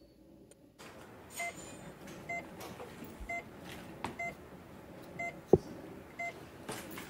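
Medical monitor beeping steadily, one short beep about every second, over the hum of a treatment room. A single sharp knock comes about five and a half seconds in.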